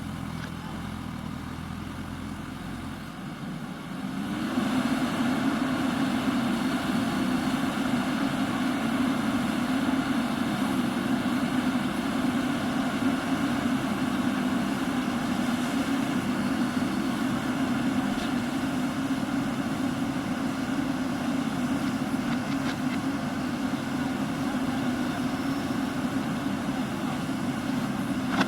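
Diesel engine of a JCB backhoe loader idling, then revving up about four seconds in and running steadily at higher revs, clearly louder.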